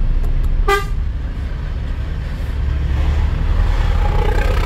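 Trailer truck's engine running steadily while driving, a low rumble heard from the cab, with one short horn toot a little under a second in.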